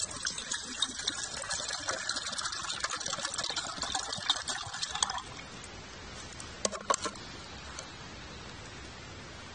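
Water poured from a plastic bottle into a metal mug, filling it for boiling, splashing steadily for about five seconds and then stopping abruptly. Two light clicks follow a couple of seconds later.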